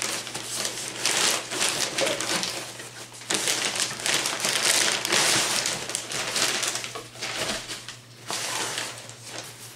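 Crinkling and rustling of a plastic shipping bag as hands rummage through it, loudest in the middle few seconds and fading near the end.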